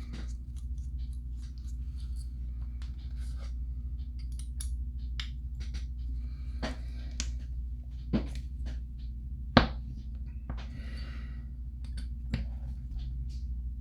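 Scattered small clicks and taps of a hand tool and small metal parts as a driver works at the tight screws holding the gear on an RC crawler's stock differential, the loudest click a little over halfway through, over a steady low hum.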